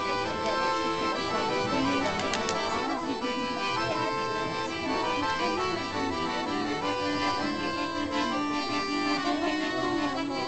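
Accordion playing traditional music.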